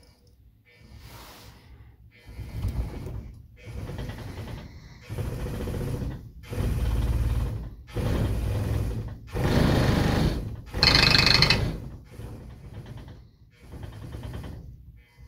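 Glas-Col Large Capacity Mixer platform shaker running in pulses: its motor and rattling platform come on for about a second, pause briefly, and come on again, over and over. The pulses get louder as the motor speed is turned up, then quieter again near the end.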